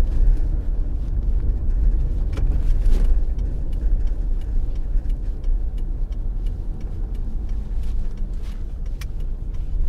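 A car driving along a road: a steady low rumble of engine and road noise, with scattered faint clicks and knocks.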